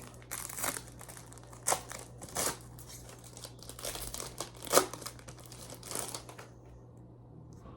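Foil wrapper of a Japanese Pokémon card booster pack crinkling as the pack is torn open and its cards handled, in a string of sharp crackles that stops about a second before the end.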